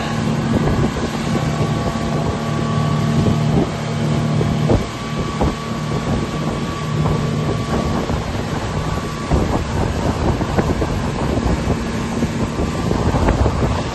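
Motorboat engine running steadily at cruising speed, with wind buffeting the microphone and the wake rushing behind the boat. A few thumps come around four to five seconds in.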